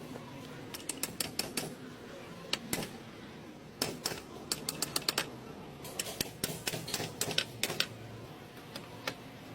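Hand tools clicking and tapping on metal while a drive shaft universal joint is worked on: quick clusters of sharp clicks, several a second, with short pauses between them.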